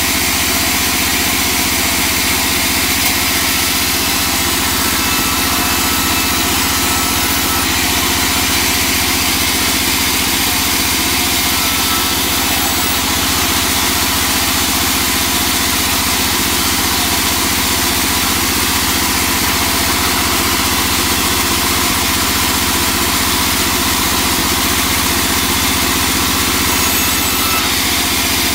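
Large vertical band saw running steadily while ripping a teak board.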